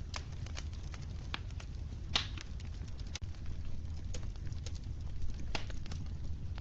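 Wood fire crackling: scattered sharp pops and snaps over a steady low rumble, the loudest pops about two seconds in and again about five and a half seconds in.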